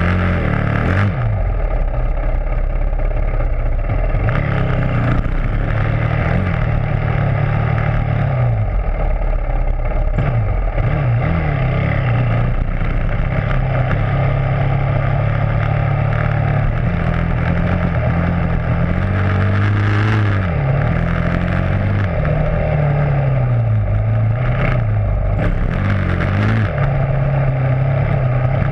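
Dirt bike engine heard up close from a camera on the bike's rear fender, revving up and down as it is ridden along a trail, its pitch rising and falling repeatedly. Its pitch drops sharply about a second in and again about twenty seconds in, as the throttle is rolled off.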